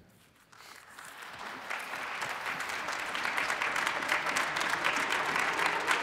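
Congregation applauding. It starts faint and swells over the first two seconds to steady, full clapping.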